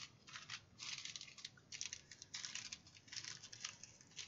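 Small plastic bags of round diamond-painting drills rustling and crinkling as they are handled and sorted, in short irregular bursts.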